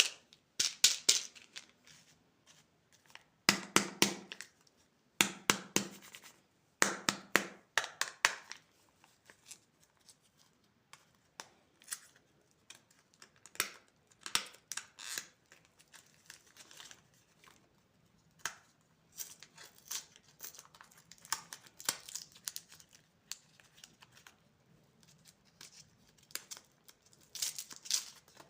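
Plastic candy wrappers and packaging crinkling and tearing as they are opened, in bursts of sharp crackles about a second long with quieter scattered rustling between.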